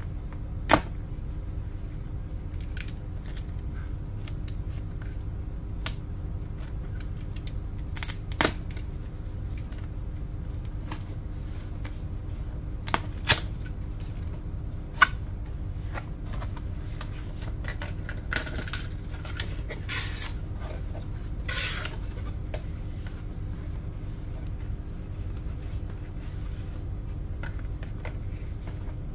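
Cardboard box being handled and opened: scattered sharp clicks and taps as a paper tab is pulled and the flaps are folded open, with a few short rustles of paperboard around two-thirds of the way through. A steady low hum runs underneath.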